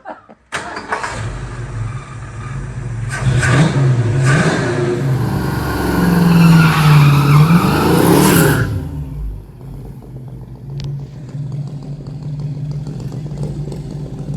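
Carbureted car engine revving hard several times, loudest about five to nine seconds in, then dropping back to a steady idle.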